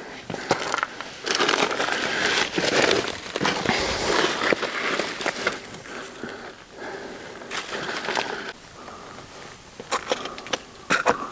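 Hiking boots crunching and scuffing on loose gravel and rock during a scramble up a steep slope, with dry brush scraping past. A few sharper clicks come near the end.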